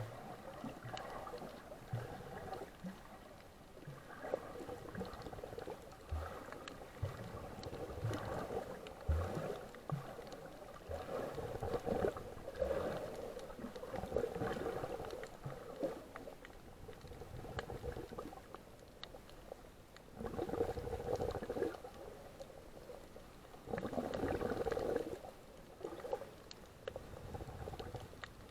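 Water sloshing and gurgling around the camera, rising and falling in uneven swells of a second or two, with a few dull knocks.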